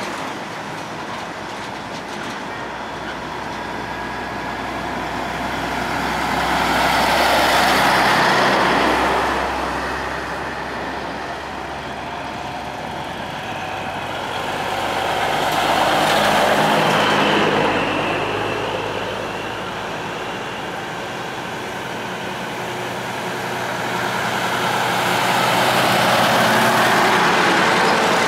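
Diesel semi-truck tractors driving past one after another in a convoy. Each truck's engine and tyre noise swells and then fades as it goes by, three times, with the loudest moments about nine seconds apart.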